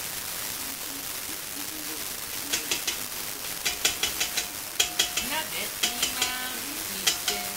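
A spatula knocking against the rim of a stainless steel stockpot. A run of sharp, ringing clinks in quick clusters starts about two and a half seconds in, over a steady hiss.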